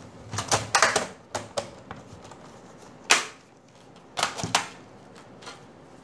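Plastic bottom cover of a Dell Inspiron 3576 laptop being pressed onto its chassis, its clips snapping into place: a quick run of sharp plastic clicks in the first second and a half, then single louder clicks about three seconds in and twice more around four and a half seconds.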